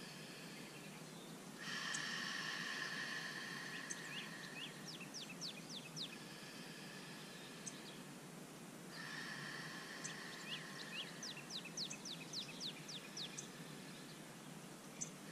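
A person breathing out slowly through an open mouth twice, each a breathy 'haa' lasting three to four seconds, part of a yogic breathing exercise. Small birds chirp in quick runs in the background.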